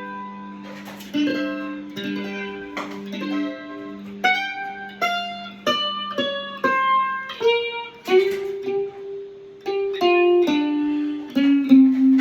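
Loar 310 electric mandolin playing a blues in G. A low G rings on under higher picked notes, then gives way to a run of single picked notes.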